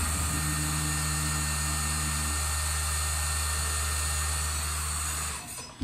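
Small servo motor with a pulley on its shaft running at its top speed setting of 45: a steady high-pitched whine over a low hum, cutting off shortly before the end.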